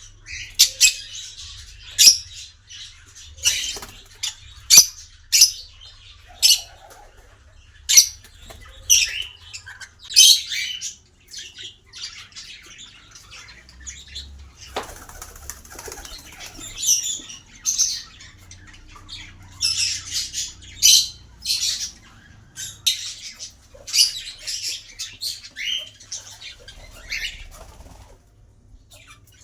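Small pet parrots chirping and squawking in many short, sharp, high-pitched calls, coming in irregular clusters. There is a brief rustling noise about fifteen seconds in.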